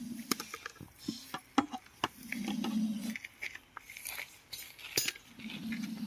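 Scattered light clicks and knocks of a plastic jar lid being handled and set down on gravel, with the sharpest knock about five seconds in. A low hum comes and goes twice.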